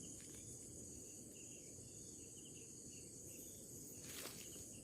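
Faint, steady high-pitched chorus of insects, crickets or similar, with a few soft chirps in the middle and a light click near the end.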